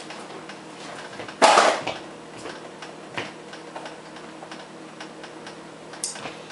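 Pot of penne boiling on an electric coil burner: scattered light ticks and pops, with one short, louder burst of hiss about a second and a half in.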